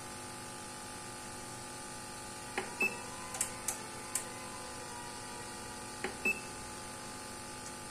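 Bench DC power supply being set by hand: a few sharp button clicks about 2.5 to 4 seconds in and two more around 6 seconds, two of them followed by a short high beep, over a steady faint hum.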